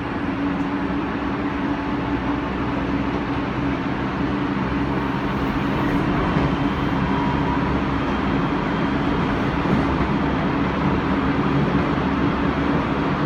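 Odakyu 2000 series electric train heard from inside the car: the VVVF inverter and traction motors whine steadily over wheel and rail rumble as the train picks up speed. This is the car's original inverter software, before the later software update.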